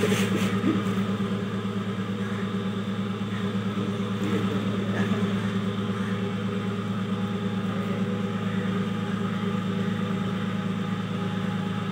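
Fishing boat's engine idling with a low, steady hum.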